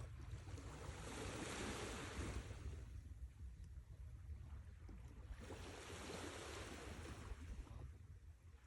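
Sea waves breaking and washing in, two waves swelling up about a second in and again about five and a half seconds in, over a steady low rumble.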